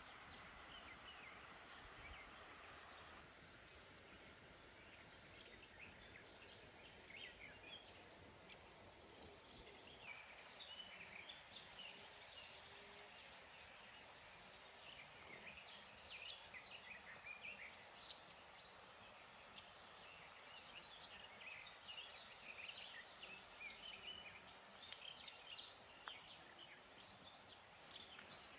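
Faint outdoor birdsong: many small birds chirping and singing in short scattered phrases over a low, steady ambient hiss, getting busier from about ten seconds in.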